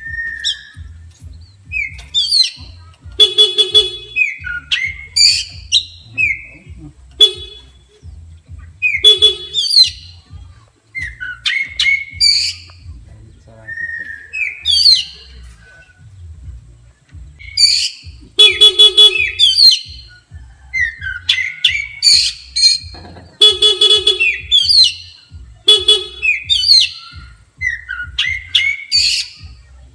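Oriental magpie-robin (kacer) singing a loud, agitated song of sharp whistles and quick gliding phrases. Short buzzy horn-like notes come in between the phrases several times.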